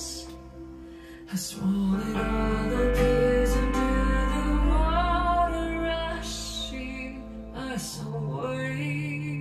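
A song with a female voice singing over guitar, with a deep bass note held from about one and a half to five seconds in, played back through a pair of Jensen CS315 loudspeakers.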